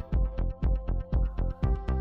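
Background electronic music with a steady, quick beat.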